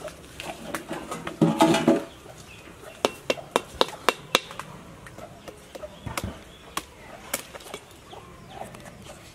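A chicken clucks loudly about a second and a half in. Then a knife hacks at a jackfruit's stem: a quick run of sharp knocks about three seconds in, and a few single knocks later.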